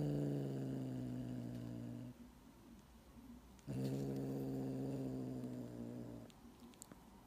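Tabby cat giving two long, low, steady growls: the first runs on from the start and ends about two seconds in, the second starts near the four-second mark and lasts about two and a half seconds.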